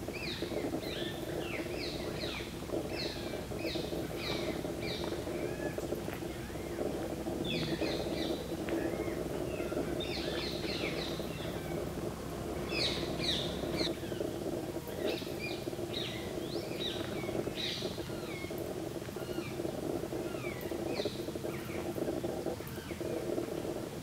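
Wild animal calls: clusters of short, high, falling chirps repeated every second or so, over a steady low hum.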